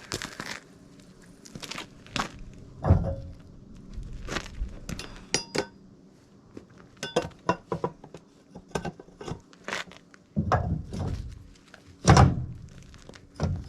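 Irregular thunks and knocks with a few short metallic clinks, the heaviest thumps about three seconds in and again near the end, from handling and fitting parts.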